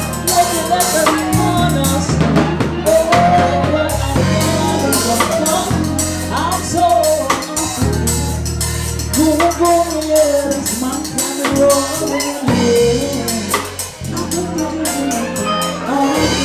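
Live band music: a drum kit keeping a steady beat with cymbals, a bass line, and a voice singing long, sliding notes.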